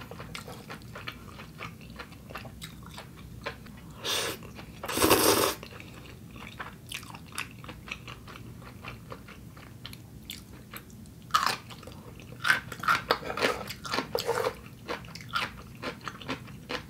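Close-up eating sounds: a mouthful of noodles slurped in two louder slurps about four and five seconds in, then wet chewing and small mouth clicks in the second half.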